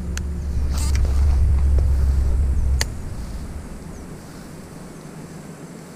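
A heavy low rumble on the microphone for about the first three seconds, then fading, with a few sharp clicks: one near the start, one just under a second in, and a crisp one near three seconds in.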